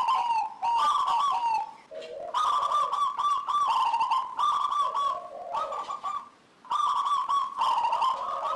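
Zebra dove (local perkutut) singing its rapid, rolling cooing song in repeated phrases, with short pauses about two seconds in and again about six and a half seconds in.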